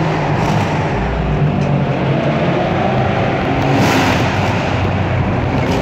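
A car's engine and road noise heard from inside the cabin while driving through a road tunnel; the engine note climbs a little as the car speeds up, and the rush swells about four seconds in.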